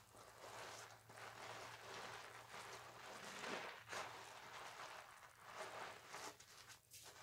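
A loofah rubbed against a wet bar of soap to work up lather: faint, irregular scrubbing swishes.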